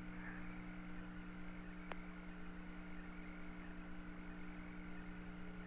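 Steady hiss and hum of an open radio communications channel, with a single faint click about two seconds in.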